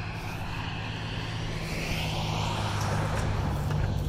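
Traffic noise from a busy road: a passing vehicle swells and fades over a steady low hum.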